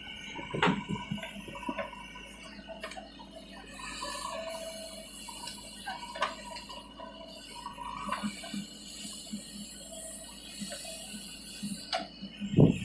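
JCB 3DX backhoe loader running as it digs and swings a bucket of soil, a steady engine and hydraulic noise with scattered clanks, and a heavy thump near the end.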